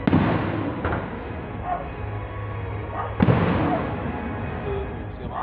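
Two aerial firework shells bursting about three seconds apart, each a sudden bang that fades away slowly.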